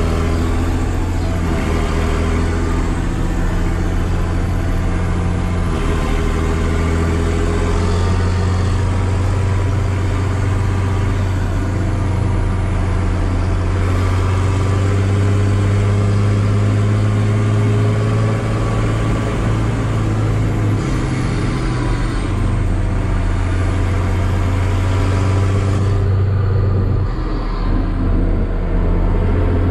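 Massey Ferguson 6180 tractor's straight-piped six-cylinder diesel engine running steadily while driving, heard from inside the cab. The engine note changes pitch a few times.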